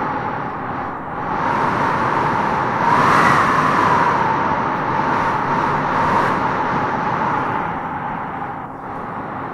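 Wind blowing in gusts, with a howling tone that rises and falls in pitch. It swells to its loudest about three seconds in and eases off near the end.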